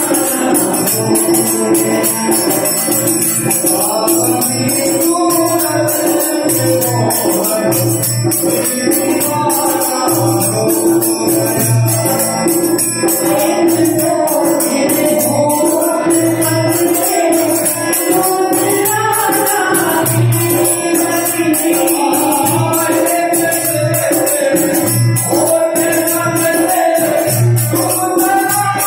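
Krishna bhajan performed live: a male voice sings the melody over a harmonium's steady held drone, with a regular low drum beat and jingling hand percussion keeping time.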